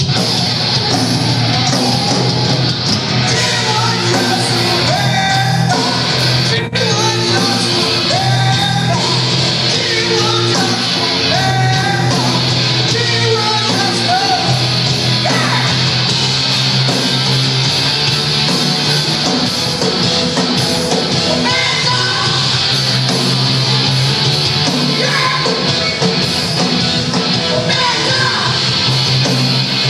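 Punk rock band playing live and loud, with electric guitars and shouted, sung vocals over a continuous full-band mix.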